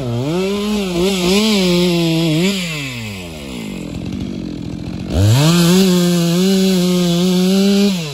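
Stihl two-stroke chainsaw cutting into the base of a thick standing trunk. The engine dips and recovers under load at first, drops to idle about two and a half seconds in, then is throttled back up to full revs about five seconds in and holds there. It eases off right at the end.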